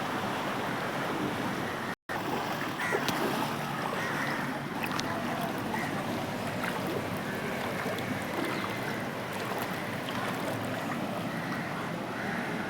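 Steady wash of moving floodwater on a flooded street. The sound cuts out completely for an instant about two seconds in.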